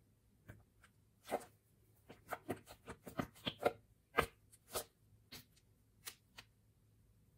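Green mesh stress balls squeezed in the hands: an irregular run of short squishing and rubbing sounds as the rubber bulges through the net, busiest between about one and five seconds in and ending near the end.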